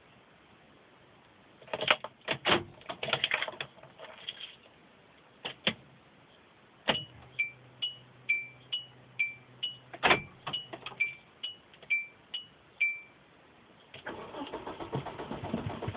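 Keys rattling and a few clicks, then a car's electronic warning chime sounding about a dozen times in quick alternating high and low tones. About two seconds before the end, the engine cranks and catches, running rough and steady after several failed attempts to start.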